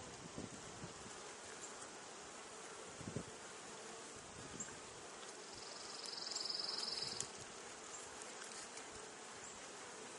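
Swarm of honeybees buzzing steadily around an opened hive. The colony is agitated and defensive after being opened. About five and a half seconds in, a higher-pitched whine rises over the hum for well over a second.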